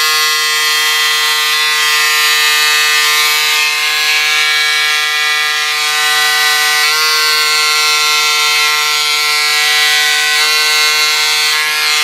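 Pink Power electric cordless scissors running continuously, a steady motor whine as the blade cuts through a single layer of Ponte Roma knit fabric. The pitch shifts slightly about seven seconds in.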